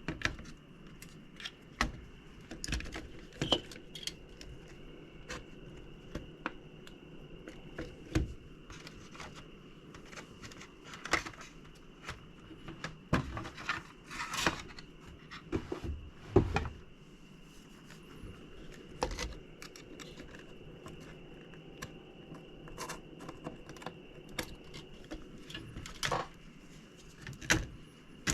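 Irregular clicks, taps and clinks of the graphics card's metal heatsink and parts being handled and set down, several a few seconds apart, over a faint steady high tone.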